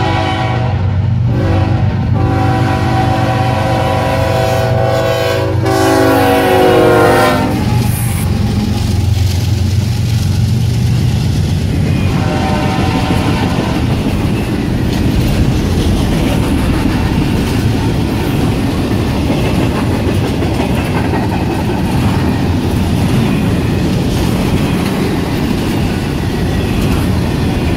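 Freight train led by GE ES44AH and ES40DC diesel locomotives: the lead locomotive's air horn sounds in long blasts, its pitch dropping as the locomotives pass about seven seconds in, over the diesel engines' rumble. Then come the steady rumble and wheel clatter of double-stack container cars rolling by.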